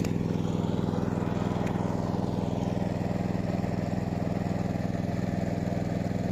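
Small engine running steadily at an even speed, driving the pump that is draining the fish pond.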